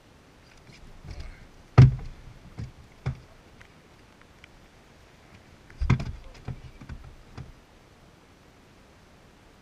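Handling knocks: two loud knocks about four seconds apart, each followed by a short run of smaller knocks and clatter.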